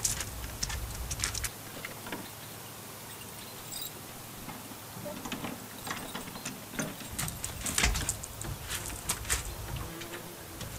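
Footsteps and scattered knocks and rattles of an old wooden door and a loose board being handled, in two busy spells with a quieter stretch between.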